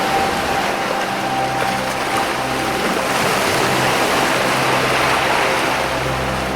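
Ocean waves washing against rocks, a steady rushing surge that swells in the middle, with soft held music notes underneath.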